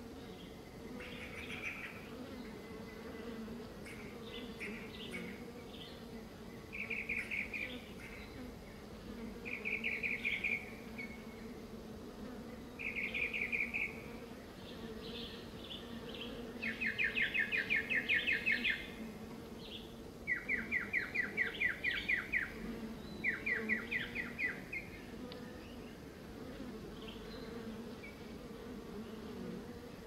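Honey bees buzzing steadily as they forage among flowers, a continuous low hum. Over it a songbird sings about eight short phrases, several of them fast trills, loudest in the second half.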